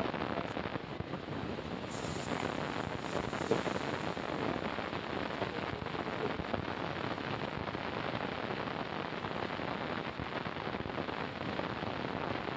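Heavy construction machinery working on site: a steady, rough rumbling noise with no clear engine note and no separate knocks standing out.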